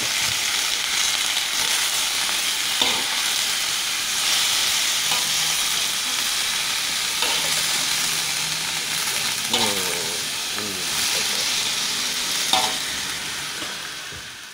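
Napa cabbage sizzling in hot oil in a wok while being stir-fried, with occasional scrapes of the metal spatula against the pan. The sizzle fades away near the end.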